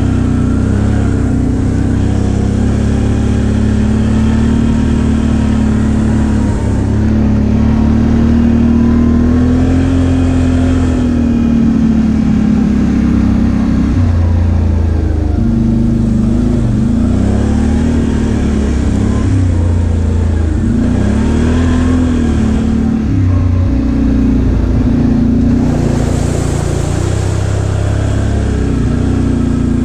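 Can-Am Outlander XMR 570's V-twin engine running while the ATV is ridden, its pitch rising and falling with the throttle several times past the middle.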